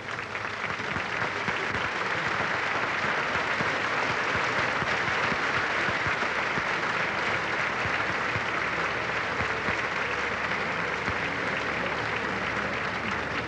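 Audience applauding, swelling in the first second and then holding steady.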